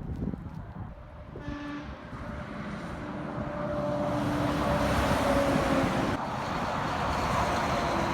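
A vehicle horn gives a short toot, then a longer blast that dips slightly in pitch as the vehicle passes close by. The noise of the passing vehicle swells to its loudest midway through.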